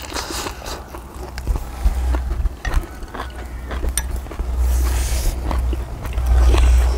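Close-miked eating sounds: chewing and mouth clicks from a lettuce wrap of grilled pork belly. Underneath is a low wind rumble on the microphone that swells several times and is the loudest part.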